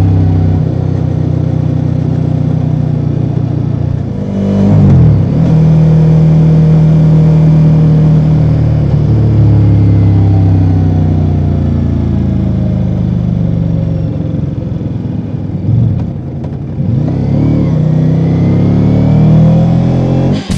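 2024 Ducati Multistrada V4 Rally's V4 engine through its stock exhaust, running under way at fairly steady revs. The revs drop briefly about four seconds in, and again near sixteen seconds before climbing back up.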